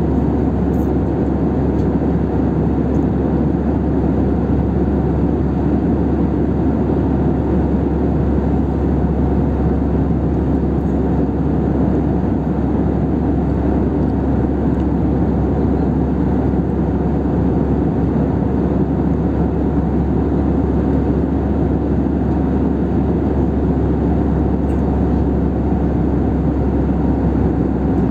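Steady cabin noise of an Airbus A319 in flight, heard from inside the passenger cabin: an even, low drone of jet engines and airflow that holds at one level throughout.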